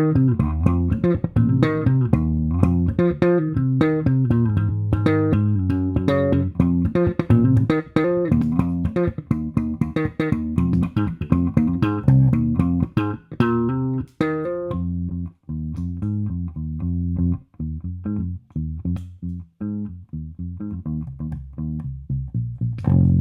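Electric bass, a Fender Jazz Bass American Special played through a Mad Professor Forest Green Compressor pedal into a Gallien-Krueger MB-500 amp and Neo 112 cabinet, playing a quick run of plucked notes. About fifteen seconds in, the tone turns darker and the notes come more spaced out, and a long held low note rings out near the end.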